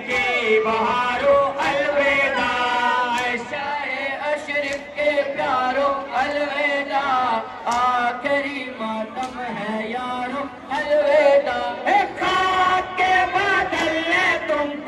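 Loud vocal music: a song sung in a chanting style over accompaniment, running without a break.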